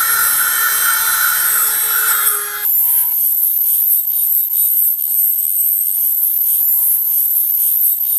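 Scraping and rubbing on the metal of a vintage manual meat grinder being cleaned of rust, a dense grinding noise that changes about two and a half seconds in to lighter, hissing strokes. Soft background music runs underneath.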